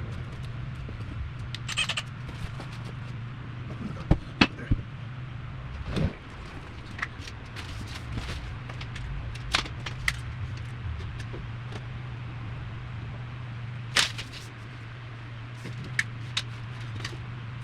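A steady low hum under scattered sharp knocks, clicks and rustles of hands handling tools and materials, with a quick cluster of knocks about four seconds in and single sharp clicks later on.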